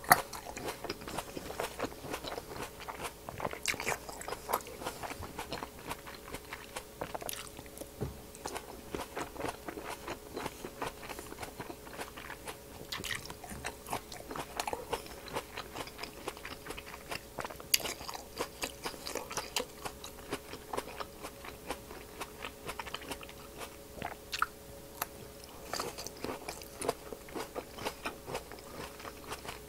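Close-miked biting and chewing of black grapes: many small sharp crunches and clicks of the skins breaking, going on throughout. A faint steady hum runs underneath.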